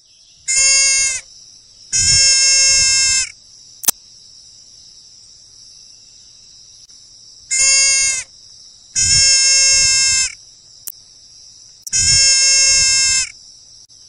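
A hoofed animal bleating: five level-pitched calls, a short one followed by a longer one twice, then a last long one, over a steady high hiss.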